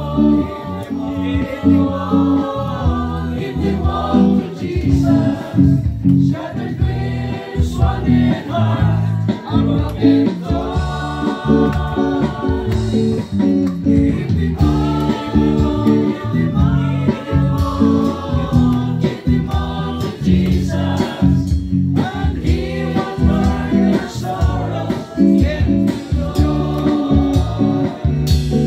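A small group of voices singing a slow gospel song together, with guitar accompaniment.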